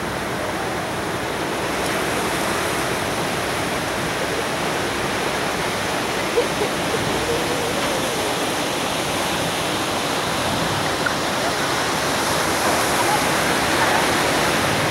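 Ocean surf breaking and washing up the beach: a steady rush of waves that swells a little louder near the end.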